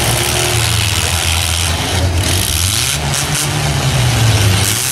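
Demolition derby trucks' and vans' engines running together in a steady loud rumble, one revving up about three seconds in and easing back before the end.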